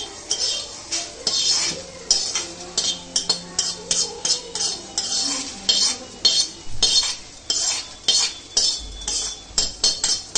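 Roasted coriander seeds being scraped out of an iron kadhai into a steel plate: a run of short metal scrapes against the pan, about three a second, with the seeds rattling onto the plate.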